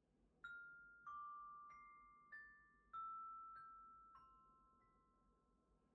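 Sanukite stone chimes struck with a mallet, playing an eight-note phrase (F, D, high C, A, E, G, low C, B). Each strike comes about 0.6 s after the last and rings on clearly, so the notes overlap, and the last one fades away.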